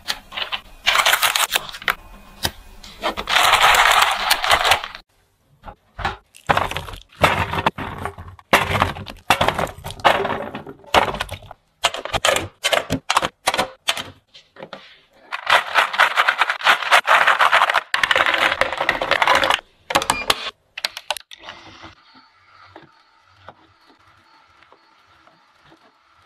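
Close-up handling sounds in quick cuts: crisp paper rustling, then a long run of sharp clicks and taps as metal tins are handled. Near the end this gives way to the quieter, steady hum of a juicer motor.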